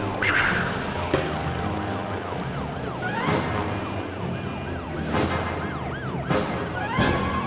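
Siren sound effect wailing in quick up-and-down sweeps over a music bed, with four sharp hits about three, five, six and a half and seven seconds in.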